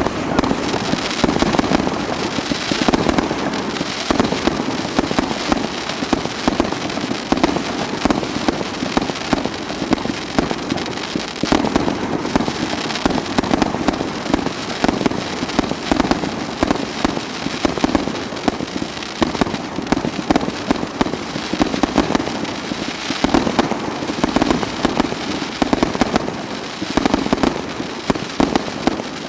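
Professional fireworks display firing a dense, continuous barrage: a constant rapid mix of bangs and crackling that begins abruptly and keeps up without a break.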